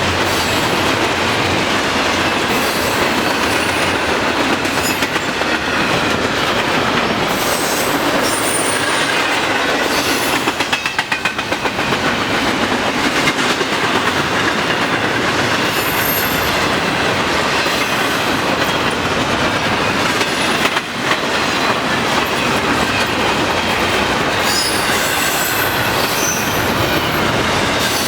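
A long Norfolk Southern intermodal freight train's cars rolling past at speed: a steady rumble and rattle of steel wheels on rail, with clicking over the rail joints and brief high wheel squeals here and there.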